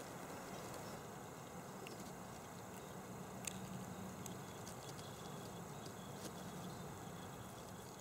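Faint outdoor ambience: a steady low hiss with a thin, high, steady tone, broken by a few short sharp clicks, the sharpest about three and a half seconds in.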